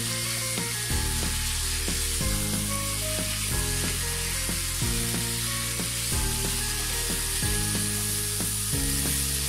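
Fried fish and eggplant pieces sizzling in a nonstick pan, with a spatula scraping and stirring them through the masala. Background music with a low repeating bass line plays under it.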